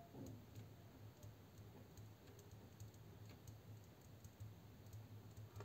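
Faint scratching and ticking of a pen writing on paper, over a steady low hum.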